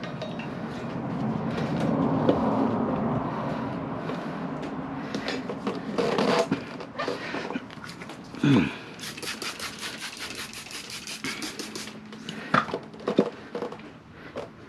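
Motorcycle tire being levered onto its rim by hand: rubber bead and tire irons scraping and creaking, with a loud falling creak about eight seconds in, then a fast rattle of clicks for about three seconds and a few sharp knocks near the end.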